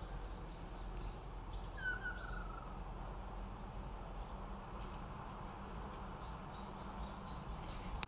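Forest background with a low steady hum and runs of short high chirps, about five a second at first and sparser later. A brief, faint descending trill comes about two seconds in.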